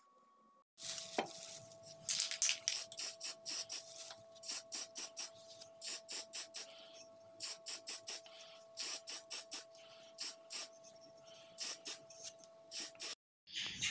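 Aerosol spray paint can hissing in many short, irregular bursts as it sprays the taped-off end of a wooden hammer handle black, with a faint steady tone beneath.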